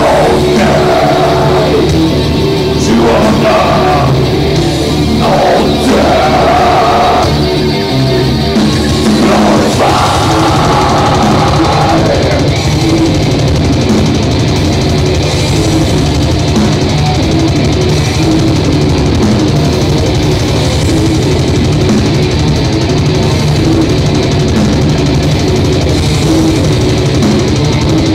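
Heavy metal band playing live, loud: distorted electric guitars and drum kit, with a sung vocal line over the first twelve seconds or so before the band carries on without vocals.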